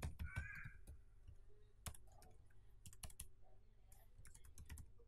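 Computer keyboard typing: faint, irregular keystrokes coming singly and in short clusters.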